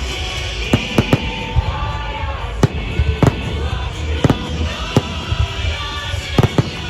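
Salute fireworks bursting: about a dozen sharp bangs at irregular intervals over a continuous low rumble, with music playing underneath.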